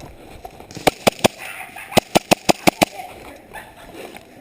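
Airsoft pistols firing in quick strings of sharp pops: three shots about a second in, then six more in rapid succession near the middle.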